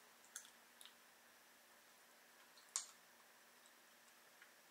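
Near silence with a few faint, sharp clicks of people eating with their hands, the loudest a little under three seconds in, over a faint steady hum.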